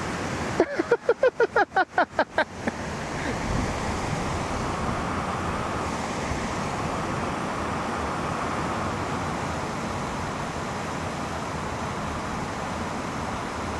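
Rushing water of a mountain stream, a steady even noise, opened by a quick run of about ten short sharp pulses in the first two seconds or so.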